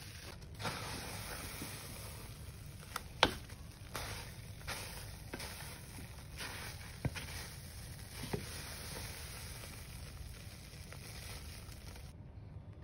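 Wooden spatula stirring and scraping thick, sticky soap paste in a pot, with soft squelches and several sharp knocks of the spatula against the pot, the loudest about three seconds in, over a steady hiss.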